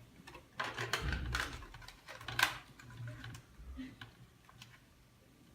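A quick run of clicks and rustles from small objects being handled, with the sharpest click about two and a half seconds in.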